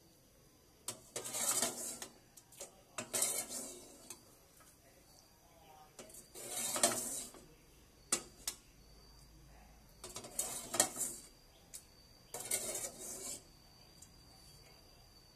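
A metal ladle clinking and scraping against an aluminium cooking pot in five or six short bursts, as curry is scooped out of the pot.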